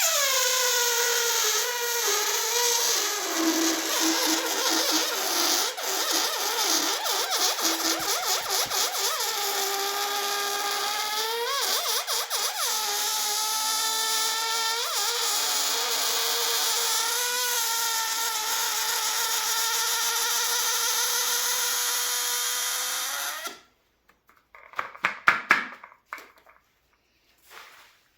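A rubber balloon deflating, air squealing out through its stretched neck in one long, loud squeal that starts a little higher and settles to a steady note, wobbling in pitch now and then. It cuts off suddenly about 23 seconds in, followed by a few short rubbery squeaks.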